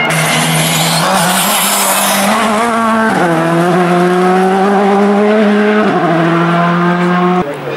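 Rally car engine running hard at full throttle, its pitch climbing and then dropping sharply at gear changes about three and six seconds in.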